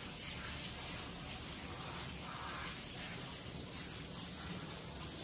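Steady spray of running water from a bathing sprayer, rinsing a dog's long coat during its bath.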